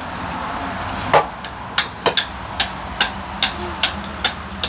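About ten sharp knocks on a cooking pot, roughly two to three a second, starting about a second in, like a small child banging on it.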